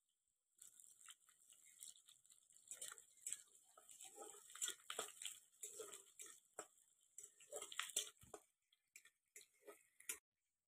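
Faint, irregular scraping and clicking of a spatula against a metal wok as food is stir-fried over a fire; it stops just before the end.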